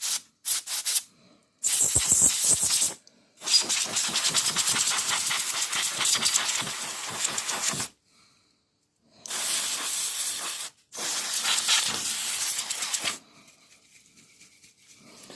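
Compressed-air duster can spraying in repeated spurts of hiss, a few quick puffs at first and then longer blasts, the longest about four seconds, blowing dust off a TV circuit board. The spraying stops about two seconds before the end.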